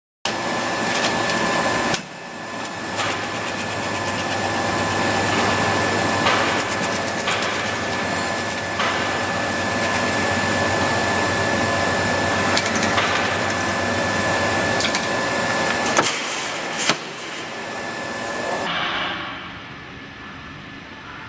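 PROFAB Manual Stitch Pro stitch welding machine running: a steady low hum and a high, steady whine over a rattling mechanical noise, with sharp clicks now and then. The hum stops about sixteen seconds in, and the machine sound fades away near the end.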